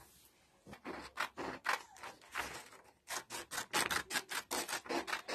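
Scissors cutting through a sheet of paper pattern: a run of crisp snips, starting just under a second in, sparse at first, then quick and regular in the last two seconds.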